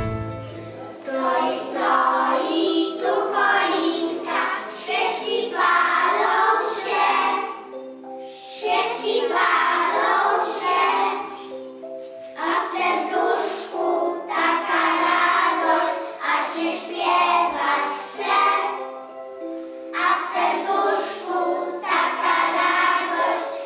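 A group of young children singing a song together, in phrases a few seconds long with short breaks between them.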